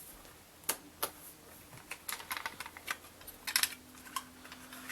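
Sharp plastic clicks and clacks of a cassette deck being handled: buttons pressed and the cassette door worked, some singly and some in quick little clusters. A faint steady hum comes in near the end.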